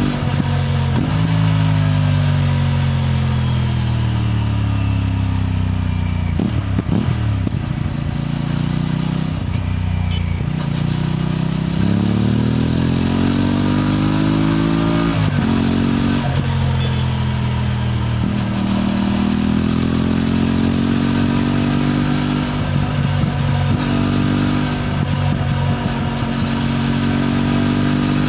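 Aprilia RS 457's parallel-twin engine and exhaust while riding. The revs fall away slowly for a few seconds, then climb repeatedly, with a sudden drop in pitch at each gear change.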